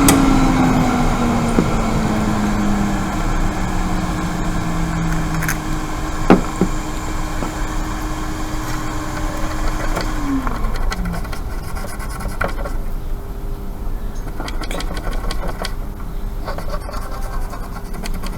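Small electric blower fan running steadily. Its motor tone slides down in pitch over the first few seconds, drops again about ten seconds in, and then holds on a new steady pitch. A couple of light clicks come around six seconds in.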